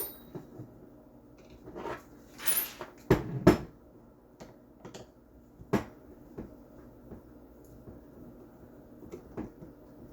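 Clicks and knocks of a screwdriver and a polymer airsoft rifle being handled on a work surface, with a short scrape and then two louder knocks about three seconds in, followed by scattered lighter ticks.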